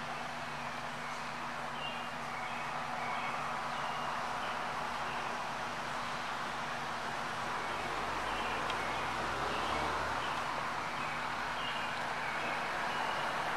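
Outdoor ambience: a steady wash of distant traffic with short, high bird chirps scattered throughout, and a low rumble from about eight to ten seconds in.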